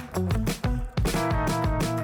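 Background music with a steady drum beat, bass and guitar, in a funk style.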